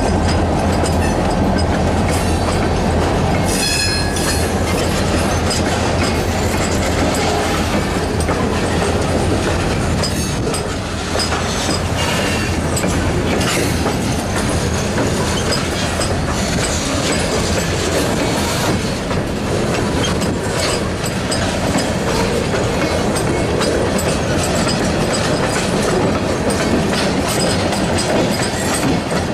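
Freight train tank cars and covered hopper cars rolling by, steel wheels clattering over the rail joints under a steady rumble. A brief high wheel squeal rings out about four seconds in.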